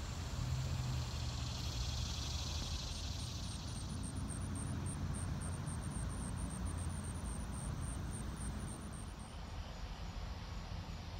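Outdoor ambience: a steady low rumble under a faint, rapid, high-pitched insect chirping that starts about two seconds in and stops near the end.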